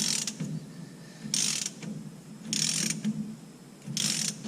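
Hand socket ratchet being worked on a fastener: four short bursts of ratcheting clicks, about one every 1.3 seconds, as the handle is swung back between pulls.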